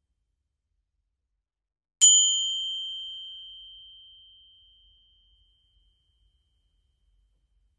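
A small bell struck once, about two seconds in: a single high ding. The main tone rings on and fades out over about three seconds, and the higher overtones die away first.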